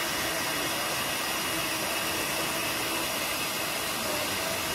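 Electric hand mixer running with a steady whir, its twin wire beaters whipping dalgona coffee mixture in a ceramic bowl.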